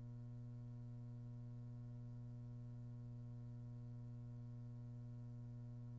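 Faint, steady low hum with a ladder of higher overtones and no speech.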